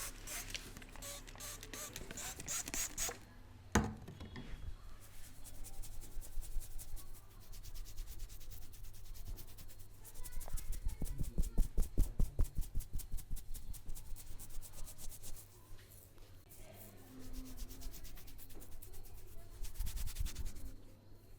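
Hands rubbing and patting a man's scalp and hair in a head massage, in quick rhythmic strokes that grow loudest about ten seconds in. A single sharp click sounds about four seconds in.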